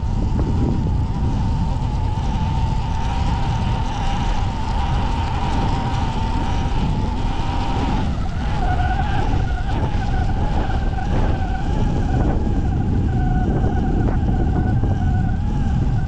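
Sur-Ron electric dirt bike's motor whining steadily while riding through deep snow, over heavy wind rumble on the microphone. About halfway through, the whine drops a little in pitch.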